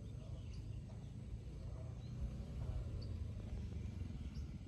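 Rural outdoor ambience: a steady low rumble with a few short, faint bird chirps scattered through it.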